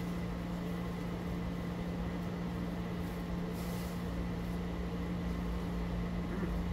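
Steady low hum of background machine noise, with a brief soft noise a little past halfway.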